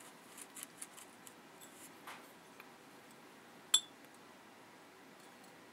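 Faint small taps and ticks, then one sharp glass clink a little past halfway, over a quiet room hiss.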